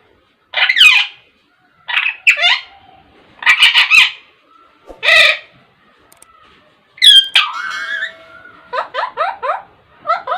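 Pet parakeet squawking: loud, harsh calls in separate bursts, several sliding down in pitch. Near the end comes a quick run of short falling calls, about four a second.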